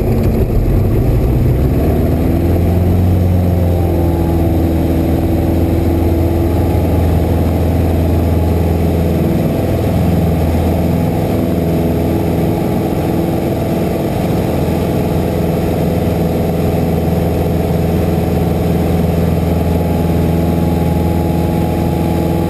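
Cessna 172RG's four-cylinder Lycoming engine and propeller going up to takeoff power for the go part of a touch-and-go, the drone rising in pitch over the first few seconds and then running steady through the ground roll and climb-out, heard from inside the cabin.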